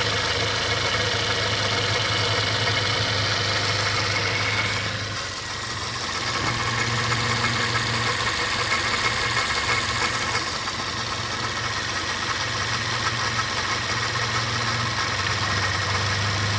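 2007 Toyota Yaris's 1.5-litre four-cylinder engine idling with a steady mechanical noise that the owner suspects comes from the water pump; the level dips briefly about five seconds in.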